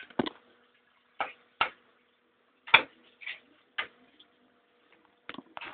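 A handful of short, irregular clicks and light knocks with quiet between them, the loudest about three seconds in.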